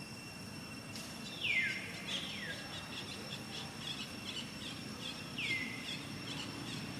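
Several high calls that glide down in pitch, with a run of short chirps between them, over a steady high insect drone.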